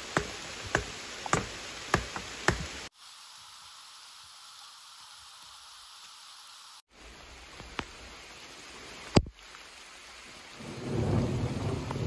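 A wooden stake being pounded into forest ground, about five evenly spaced blows under a steady hiss of rain. After a cut there is rain alone, then a single sharp knock, and a low rumble near the end.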